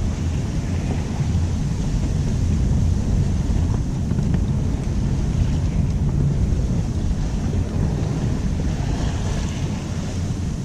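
Wind buffeting the microphone over the rush of waves along the hull of a sailboat sailing close-hauled into the wind.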